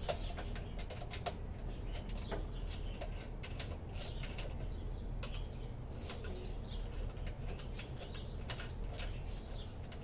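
Irregular light clicks and taps from hands working a wicker bill spoiler against the top of a car's rear hatch, over a steady low hum.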